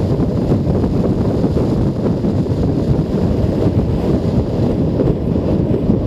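Wind buffeting the helmet-mounted camera microphone on a moving Junak M12 Vintage 125 cc motorcycle: a steady low rumble, with the bike's running mixed in.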